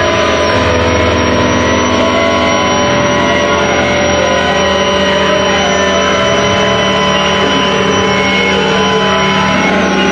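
Several guitars played as noise rather than traditionally, making a dense, steady wash of sound with many sustained tones held at different pitches.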